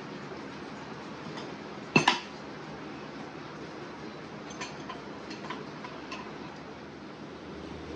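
Metal tire-changing tools clinking against a motorcycle wheel rim during a tire change: one sharp double clank about two seconds in, then a few light clinks.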